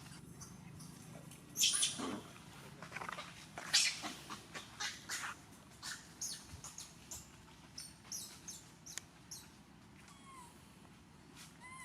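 Monkeys giving a string of short, high-pitched squeals and shrieks, the loudest about 2 and 4 seconds in, growing sparser and fainter toward the end.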